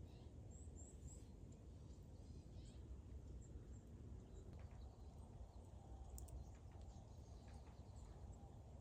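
Near-silent outdoor quiet with a steady low rumble, a few faint small clicks, and faint high chirps of birds in the first second.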